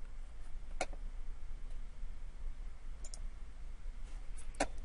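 Computer mouse clicking a few times: one click about a second in, a faint pair around the middle, and a louder double click near the end, over a low steady hum.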